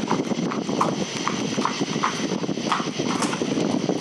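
Footsteps walking across a concrete walkway, an even run of steps, over a steady high-pitched hum.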